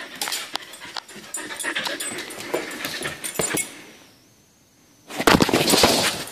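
Siberian husky pawing at a door, claws clicking and scratching, with panting. After a short near-silent gap, a loud rough burst of noise close to the microphone comes near the end.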